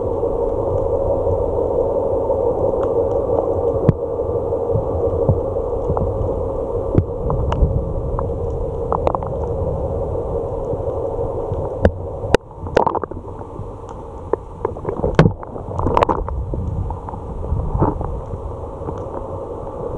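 Muffled underwater water and handling noise picked up by an action camera in its waterproof housing, a steady low rush with scattered clicks and pops that come thickest from about twelve to seventeen seconds in.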